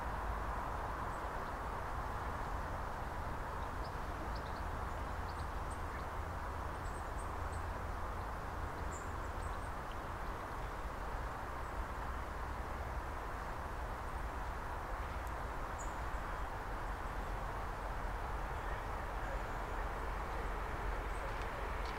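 Steady outdoor background rumble and hiss, with a few faint, short, high bird chirps scattered through it.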